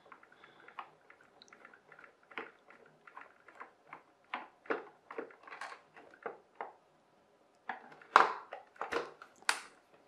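Screwdriver backing screws out of the hard plastic underside of a toy car: an irregular scatter of small clicks and scrapes, with a few louder plastic knocks near the end.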